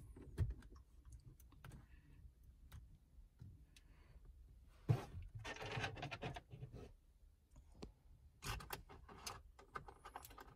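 Scattered light clicks and a short rustling stretch about five seconds in, as hands handle a car's dashboard head unit and its mounting hardware.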